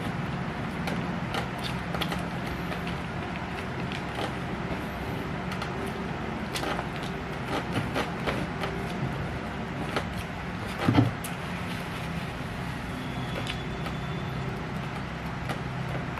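Eating sounds: scattered short chewing and mouth clicks over a steady low background hum, with one louder knock about eleven seconds in.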